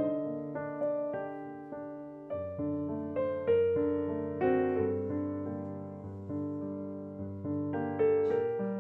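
Gentle solo piano music: notes struck about every half second, each fading away, over a low bass note held through the middle.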